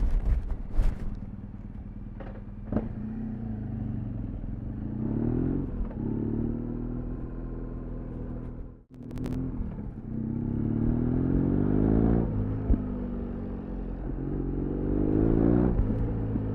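BMW R1200 GS boxer-twin motorcycle engine and exhaust under way, rising in pitch three times as the bike accelerates and dropping back between pulls. A few sharp cracks in the first three seconds, and the sound drops out for a moment about halfway through.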